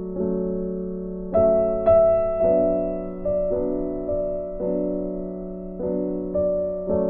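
Background piano music: slow, soft chords struck every second or so, each fading slowly, with a brighter, louder pair of notes about a second and a half in.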